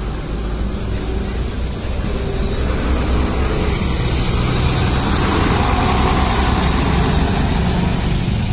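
Intercity bus's diesel engine running as the coach pulls past at close range, loudest as it goes by about halfway through, then drawing away.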